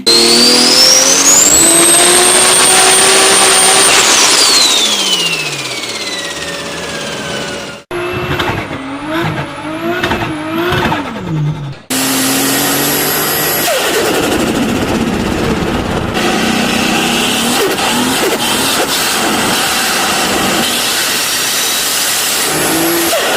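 Turbocharged car engines in several cut-together clips: a turbo whine climbs to a high pitch, then sweeps down as the throttle closes, with turbo flutter on lift-off. Then comes a short passage of engine revving rising and falling, and after it a steadier engine sound; the sound changes abruptly at each cut.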